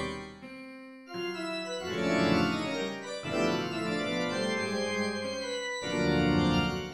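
Organ playing dense, atonal sustained chords; new chords come in about a second in, near two seconds and again near six seconds.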